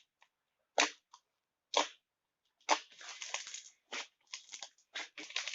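Soft homemade slime being squeezed and pressed by hand, giving sharp wet pops about once a second and then a longer run of crackling, the sizzly crackle of an airy slime.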